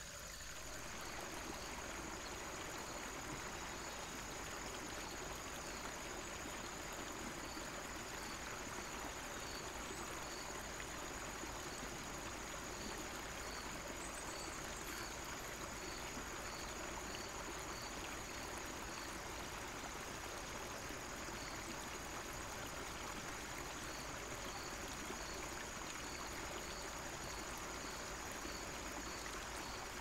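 Small woodland stream flowing and trickling steadily over a low cascade.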